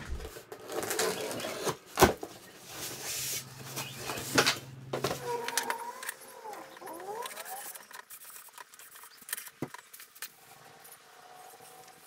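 Unpacking and handling a new wood-turning lathe and its parts on a table: rustling of packaging and paper with a few sharp knocks, the loudest about two seconds in, then lighter clicks.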